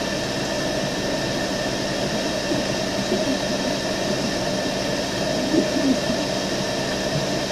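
Steady hum and hiss of a vehicle's engine and ventilation fan running, heard from inside the car.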